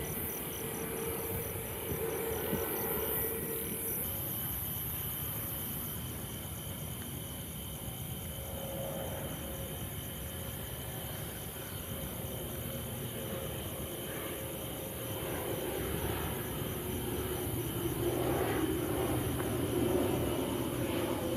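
Night insects chirping in a steady, fast-pulsing trill over the low rumble of an approaching aircraft's engines, which grows louder over the last few seconds.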